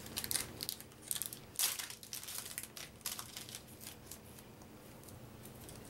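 Plastic booster-pack wrapper crinkling and crackling as it is pulled and torn open by hand, in a run of short crackles that are busiest in the first two seconds and thin out toward the end.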